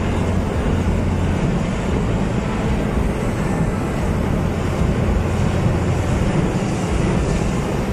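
Hot-air balloon propane burner firing continuously, a loud, steady rush of flame.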